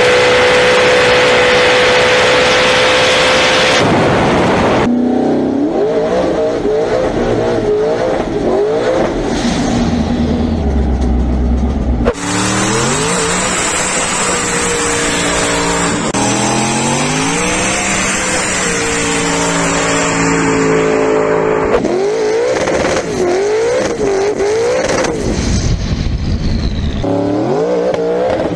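Twin-turbocharged 427 LSX V8 in a drag-race Mitsubishi Evo 8, heard in several clips: held at a steady high pitch on a run, then revved up and down during a tyre-smoking burnout, and climbing in pitch in steps as it pulls through the gears.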